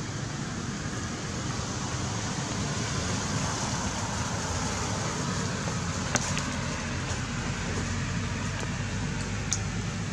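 Steady outdoor background noise, a low hum under a hiss, with two brief faint clicks about six and nine and a half seconds in.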